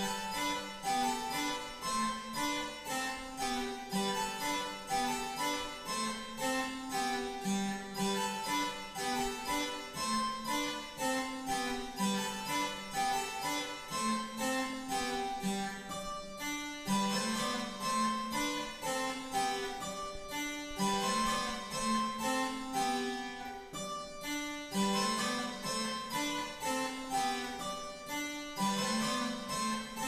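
Harpsichord playing a lively keyboard piece in quick, even plucked notes, pausing briefly twice between phrases.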